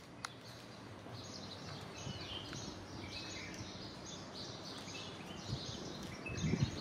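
Many small birds chirping and twittering at once, over a steady background hiss. A low rumble comes in near the end.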